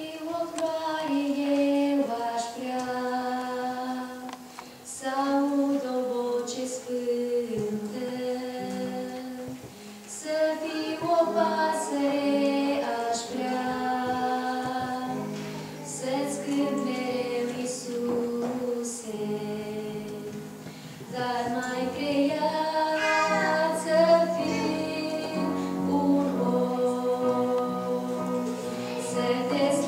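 A woman singing a Romanian hymn solo over held keyboard chords.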